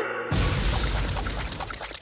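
A sudden low boom about a third of a second in, a cartoon sound effect that rumbles and fades over the next second and a half.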